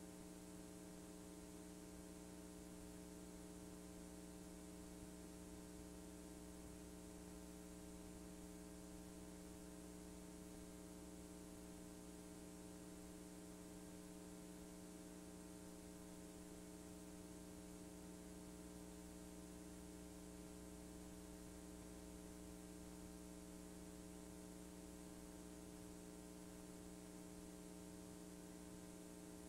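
Near silence: a faint, steady electrical hum of several fixed tones over light hiss, the noise floor of VHS tape playback on a blank stretch of tape.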